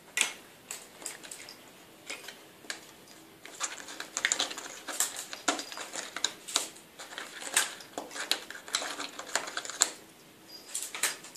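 Cat moving about inside a cardboard box, its paws and claws tapping, scratching and rustling on the cardboard in irregular bursts. The bursts are busiest in the middle of the stretch.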